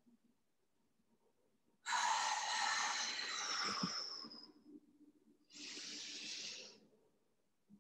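A woman breathing deeply and audibly in time with cat-cow yoga movements. A long, loud breath comes about two seconds in, with a thin whistle near its end. A shorter, quieter breath follows near the end.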